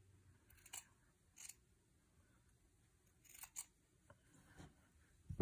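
Sewing scissors and pinned fabric scraps being handled during trimming: a few faint, short, crisp snips and rustles scattered through, and a louder knock at the very end.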